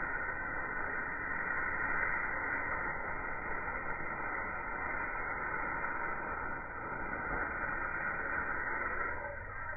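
Steady hiss of a small smoke firework burning and pouring out blue-grey smoke. The hiss fades out near the end.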